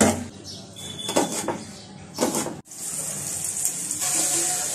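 Knocks and clatters of fish being washed by hand in a ceramic bowl. After a sudden cut, a steady high sizzling hiss follows as onions and green chillies fry in an iron wok under a stirring spatula.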